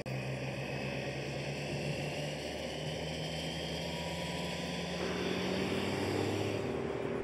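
Steady engine drone from motor vehicles running alongside a bike race, with a faint tone slowly rising in pitch. The engine note shifts about five seconds in.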